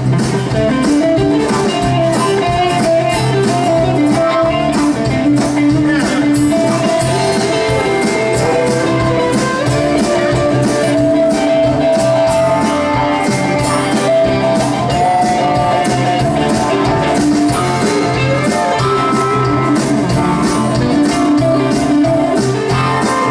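Live rock band playing: acoustic and electric guitars, bass guitar, keyboard and drums, loud and steady throughout.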